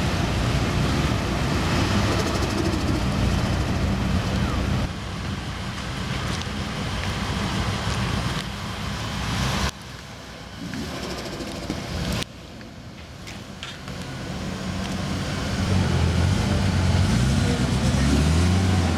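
A modified, turbocharged Nissan Silvia S15's engine and exhaust running as the car drives in. The level drops abruptly about 5, 10 and 12 seconds in, and the engine note swells louder again from about 14 seconds.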